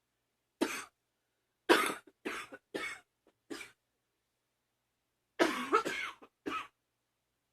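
A girl coughing in short separate coughs: one, then a run of four, then a longer, more voiced cluster of coughs near the end followed by one last cough.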